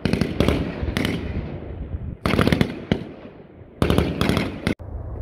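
Rifle fire on an outdoor firing range: several shots in quick succession from more than one firing point, coming in about four clusters a second or so apart, each shot echoing.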